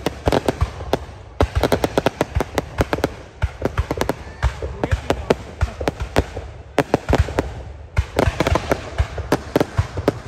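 Aerial fireworks display: shells bursting in rapid volleys, a dense run of sharp bangs and crackles many times a second, with short lulls every couple of seconds.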